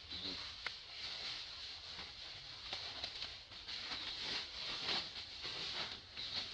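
Outdoor ambience: a steady high-pitched hiss with scattered soft rustles and light clicks, as of dry leaves shifting under the monkeys.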